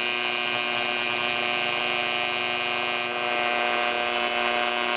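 AC TIG welding arc from a Sanjoe TIG200 AC/DC welder, building up aluminium: a steady, loud buzz at one fixed pitch over a hiss.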